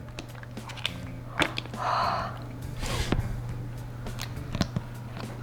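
Hot oil crackling and popping now and then as a battered, breadcrumbed phone deep fries, over a steady low hum.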